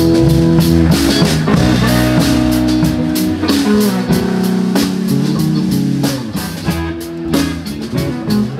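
Live band playing an instrumental passage: electric guitar over a drum kit with cymbals.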